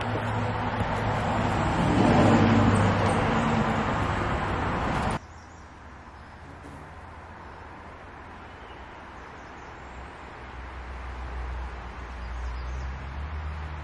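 A motor vehicle passing close by: a loud, steady rushing noise with a low engine hum, building to a peak and easing off, then cut off abruptly. After the cut there is only quiet outdoor background hiss with a low rumble.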